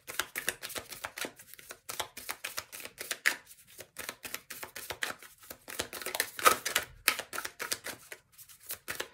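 A deck of oracle cards being shuffled by hand: rapid papery flicks and slaps of the cards, with a few brief pauses.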